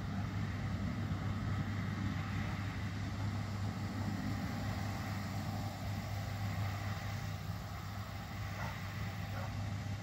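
Distant John Deere S790 tracked combine harvester and the tractor beside it, running at a steady drone while harvesting wheat.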